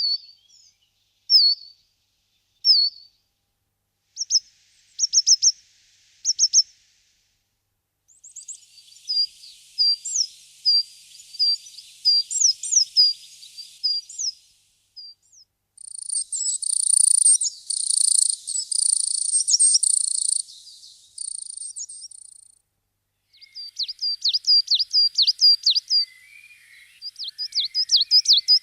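Small songbirds calling and singing. First come single high, thin, falling chirps spaced a second or more apart. Then come short bursts of quick notes over a light hiss, a dense high trill from about 16 to 21 seconds in, and rapid strings of sharp repeated notes near the end.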